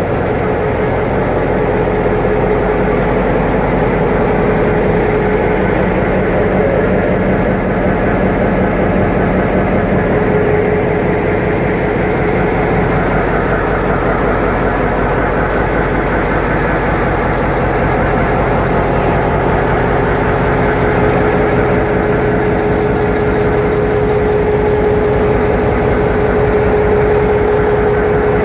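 General Motors (EMD) 567C twelve-cylinder two-stroke diesel locomotive engine running steadily, with a steady whine above the engine note.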